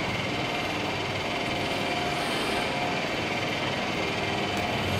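Steady hum and noise of trains standing at the platforms of a large station train shed, with a faint held tone and no sudden events.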